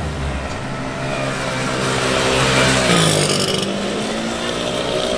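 Racing motorcycle engine revving hard as it passes. The pitch climbs, falls away sharply about three seconds in, then climbs again.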